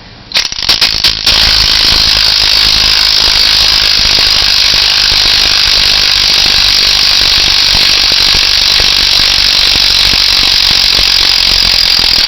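A tool fitted to the forcing screw of a harmonic balancer puller runs hard and steadily with a rapid ratcheting, mechanical clatter, pulling the balancer off the crankshaft. A few sharp clicks come first, then the loud running starts about a second in and cuts off abruptly at the end.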